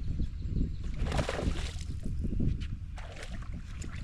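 Water sloshing and splashing around a small fishing boat, with irregular surges.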